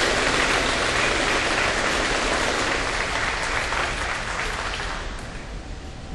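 Applause, many people clapping together, dying down about five seconds in.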